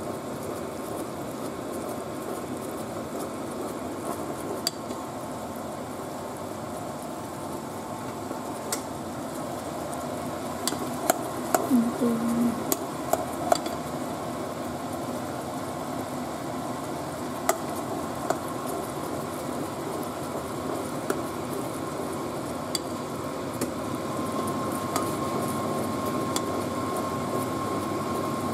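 Pot of glutinous rice in sweetened coconut milk simmering with a steady bubbling, stirred with a plastic spoon that knocks against the pot now and then, several knocks in a cluster about halfway through. A faint steady tone comes in near the end.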